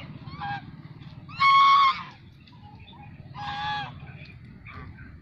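Domestic geese honking: a short honk, then a loud drawn-out honk about a second and a half in, another honk about three and a half seconds in, and fainter calls near the end.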